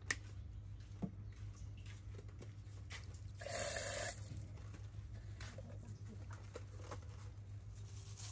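A short rush of water from a tap into a steel basin, about three and a half seconds in, over a steady low hum. Two sharp clicks come in the first second.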